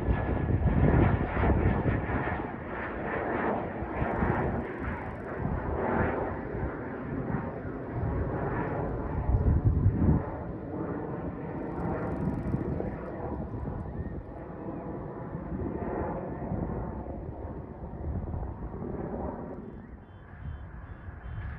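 Engine noise of a small plane flying overhead, swelling and easing in level, growing quieter near the end.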